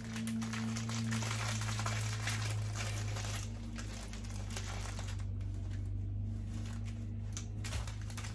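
Plastic bag crinkling and rustling as hands handle and open small bagged items, busiest in the first three seconds and more scattered after. A steady low hum runs underneath.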